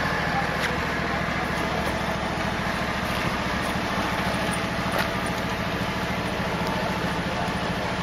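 An engine idling steadily with an even low pulsing, and a light click about five seconds in.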